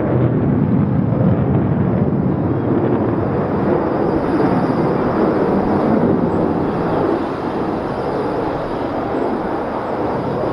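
Avro Vulcan's four Olympus turbojet engines heard from the ground as the bomber flies overhead: a loud, steady, low jet noise that eases slightly about seven seconds in.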